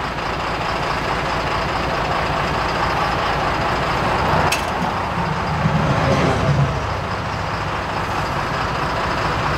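Steady motor-vehicle noise: a low engine rumble under a broad hiss, swelling a little around the middle.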